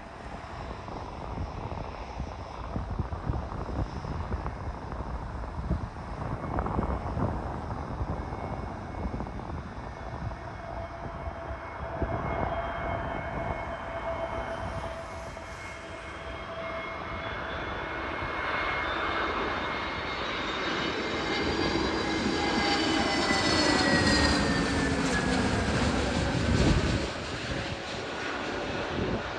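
Airbus A321neo (A321-251NX) on final approach, its CFM LEAP-1A turbofan engines making a steady rushing noise with a whine. The sound grows louder as the jet comes closer, and the whine falls in pitch as it passes near, about three-quarters of the way through.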